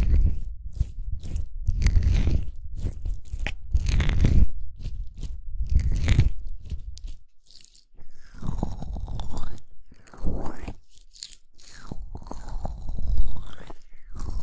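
Hands rubbing and massaging the ears of a binaural ear-shaped microphone right against the capsules, giving close, bassy strokes about every two seconds. About halfway through it changes to denser, continuous rubbing.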